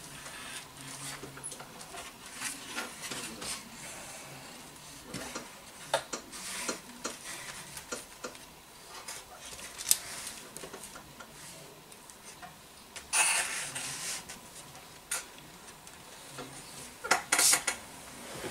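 Masking tape being handled on a balsa model-airplane wing: scattered light taps and rubbing, with short ripping sounds of tape pulled off the roll, the longest about two-thirds of the way through and two quicker ones near the end.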